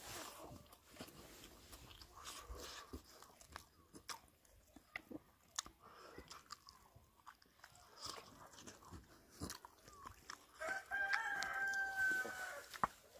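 Someone chewing and biting on pig's feet, with soft crunches and scattered clicks. Near the end a drawn-out pitched call sounds for about two seconds.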